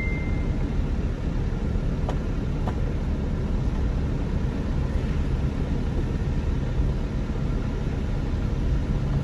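Steady engine and road noise of a 2,000 kg light delivery truck, heard from inside the cab while it is driven along a road.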